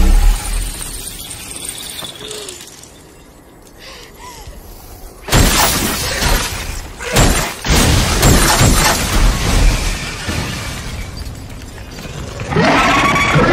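Film sound effects of ice shattering and crumbling as frozen bodies break apart: a crash at the start, a quiet stretch, then a run of sharp crashes from about five seconds in. A loud rush of noise swells near the end, with music underneath.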